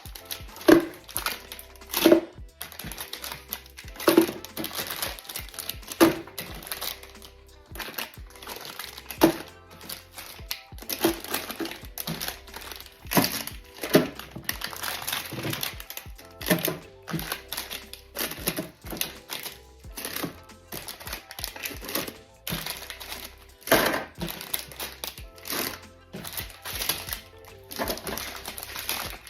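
Background music, with frequent sharp clicks and knocks and some crinkling of plastic packaging as snack packs are handled and set down.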